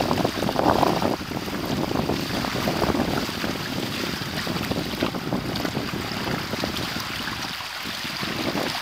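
Wind buffeting the microphone over water rushing and splashing along the hulls of a Hobie Tandem Island sailing kayak running downwind through choppy waves. A steady rush, a little stronger in the first second.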